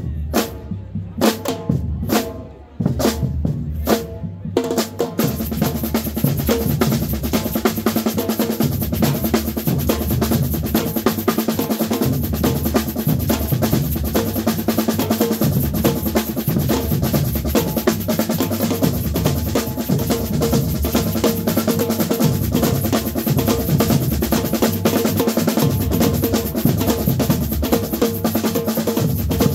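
Samba-style percussion band drumming, with snare and bass drums. A few separate loud hits at first, then from about four and a half seconds in the whole group plays a dense, steady groove.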